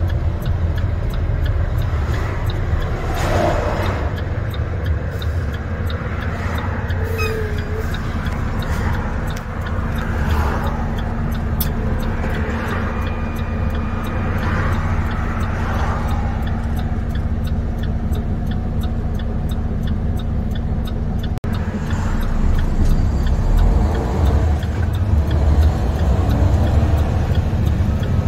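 Semi truck's MaxxForce 13 diesel engine running steadily, heard from inside the cab as the truck drives at low speed, getting a little louder in the last few seconds as it picks up.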